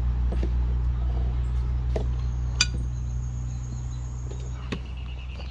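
A knife clinking a few times against a ceramic plate while roast breadfruit is sliced, the sharpest clink about halfway through, over a steady low mechanical hum.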